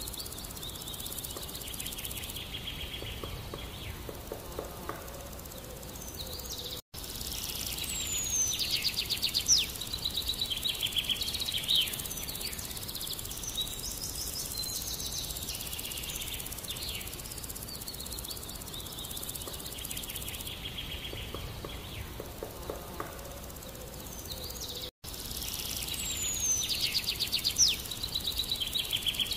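Small songbirds singing outdoors: high rapid trills, chirps and a falling whistle over a steady background hiss, the song busiest in two spells, with two very brief dropouts in the sound.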